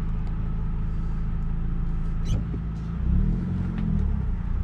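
Small vehicle's engine idling, then picking up speed about three seconds in as it moves off.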